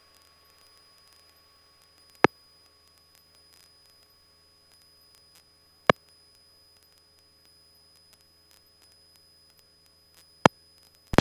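Very quiet radio/intercom feed with a faint steady hiss and hum, broken by three short sharp clicks a few seconds apart.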